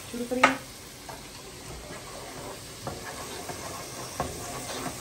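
Curry masala sizzling quietly in a pot as it is stirred with a wooden spoon, with a few light knocks of the spoon. A brief sharp clatter comes about half a second in.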